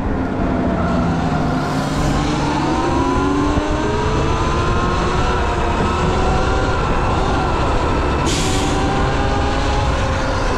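Electric dirt bike motor (Sur Ron Light Bee X) whining under way, its pitch gliding down and then rising and swaying with speed, over a heavy rumble of wind on the microphone. A brief hiss comes about eight seconds in.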